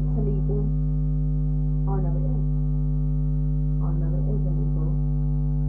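Loud, steady electrical mains hum in the recording, a low buzz with a stack of overtones, broken by a few short stretches of quiet speech.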